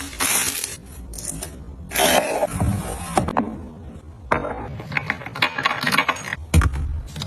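Groceries and containers being handled by hand: rustling and scraping of packaging, then a run of quick clicks and taps as items are set down and moved.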